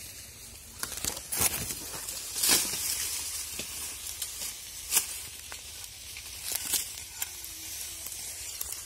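Dry sugarcane leaves rustling and crackling as the cane is handled and stripped, with several sharp cracks and snaps among them.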